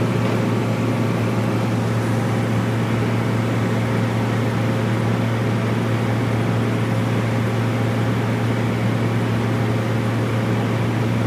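Bulldozer's diesel engine running at a steady speed, a constant deep drone with no revving or change in load.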